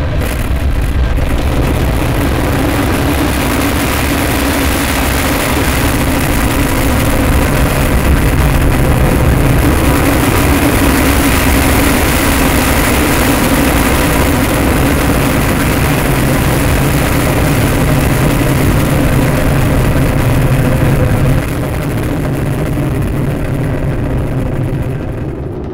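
Ariane 5 rocket launching, its main engine and twin solid rocket boosters firing: a loud, continuous, dense rocket noise that drops a little in level about 21 seconds in and fades near the end.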